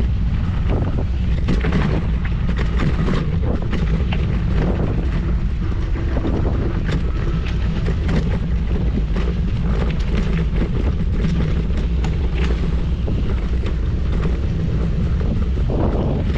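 Steady, loud low rumble of wind buffeting the microphone, with frequent short crackles and knocks throughout.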